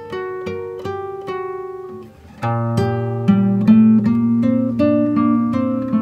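Background music on acoustic guitar: a run of plucked notes, then a brief drop about two seconds in before fuller, louder chords with strong bass notes.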